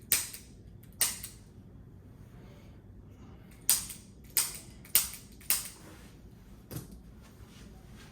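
A series of sharp cracks during a chiropractic adjustment of the patient's back: six loud ones at uneven intervals, two in the first second and four between about three and a half and five and a half seconds in, then a fainter one near the end.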